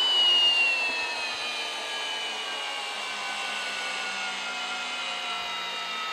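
Milwaukee Fuel hammer drill in low gear (speed 1) driving a 10-inch lag screw into a log, its motor whine sliding slowly lower in pitch as the screw sinks deeper and the load grows.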